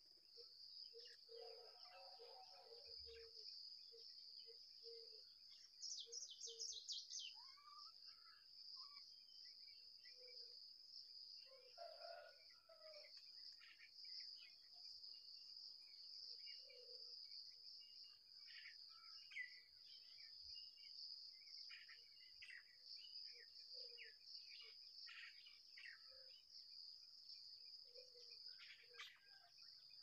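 Faint, steady, high-pitched insect trilling, with scattered short bird chirps and a brief fast rattle about six seconds in.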